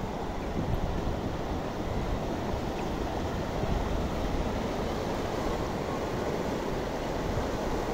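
Muddy floodwater rushing fast over fields and a track, a steady rushing noise, with wind buffeting the microphone.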